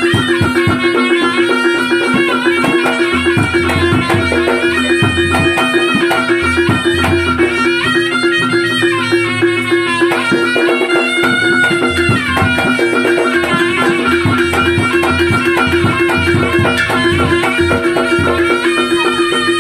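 Reog gamelan accompaniment: a wavering, reedy melody on a slompret (Javanese shawm) over steady held tones and irregular drum strokes.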